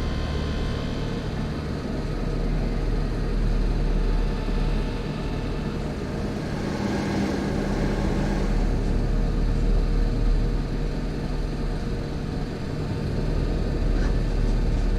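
Horror-film soundtrack: a low rumbling drone with steady held tones, swelling about seven seconds in.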